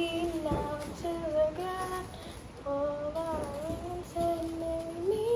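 A child singing a tune in long held notes, one held steady for over a second and then rising near the end, with a couple of dull knocks.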